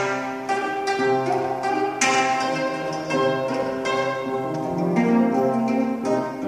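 Gayageum played solo: single strings plucked and left to ring, some held notes wavering in pitch.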